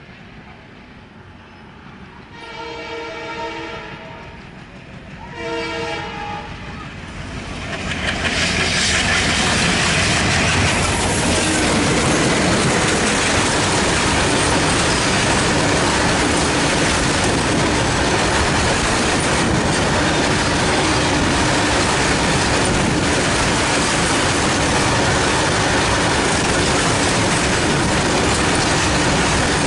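Twin ALCO WDG3A diesel locomotives sound two horn blasts, the first about two seconds long and the second about one, as the train draws closer. They then run past at speed, and a steady, loud clatter of BCNA covered freight wagons on the rails follows.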